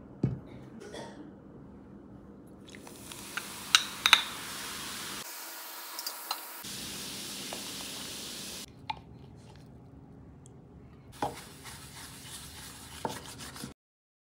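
Baking soda and vinegar fizzing in a glass as they are stirred, with a few sharp clinks against the glass about four seconds in.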